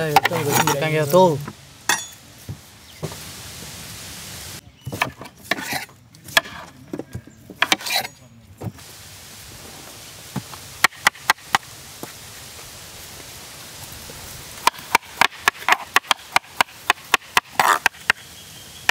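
Kitchen knife cutting dragon fruit flesh into cubes: a few scattered sharp strokes, then a fast run of about four cuts a second near the end.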